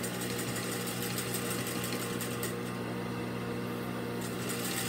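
Juki DDL-8700 industrial lockstitch sewing machine, its 3,600 rpm clutch motor humming steadily while the machine stitches fabric.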